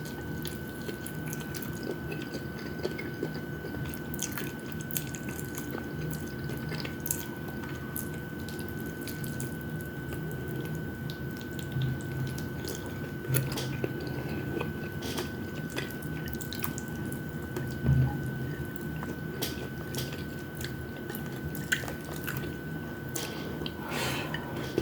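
A person eating fried chicken wings and rice close to the microphone: irregular wet mouth clicks and chewing sounds over a steady low hum and a thin high steady tone, with one louder thump about 18 seconds in.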